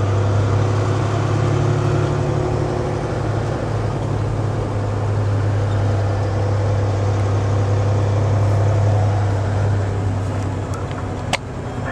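Steady low drone of a semi truck's diesel engine and road noise heard inside the cab while driving. The drone fades somewhat near the end, and a single sharp click sounds shortly before the end.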